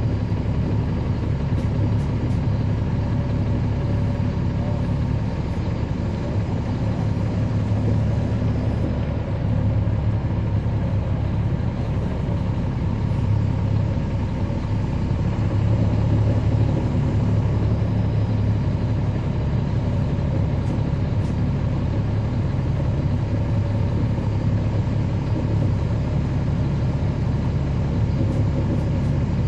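Caterpillar C13 ACERT diesel engine of a NABI 40-SFW transit bus running at a steady, even pitch, heard from inside the bus.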